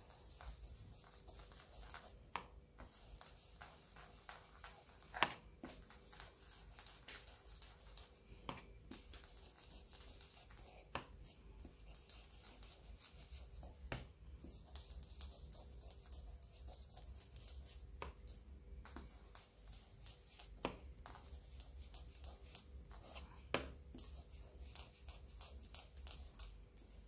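Faint scuffing of a small ink-blending sponge rubbed and dabbed over paper, with a light tap every few seconds as it is pressed down or loaded on the ink pad. A faint steady hum runs underneath.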